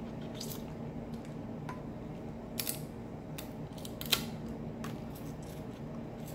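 Close-up eating sounds of a crab claw being bitten and its meat sucked out: a handful of short, sharp clicks and smacks scattered through, the loudest about four seconds in, over a steady low hum.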